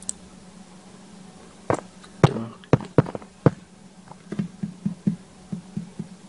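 Irregular sharp taps and knocks over a low steady hum. Several loud ones come between about two and three and a half seconds in, then lighter, quicker ones follow.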